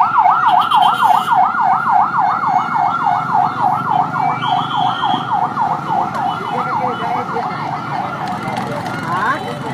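Emergency vehicle siren in a fast yelp, its pitch sweeping up and down about four to five times a second, slowly fading and cutting off shortly before the end.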